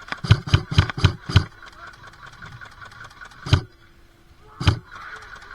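Airsoft gun firing: a quick string of about five shots, roughly four a second, then two single shots about 3.5 and 4.7 seconds in.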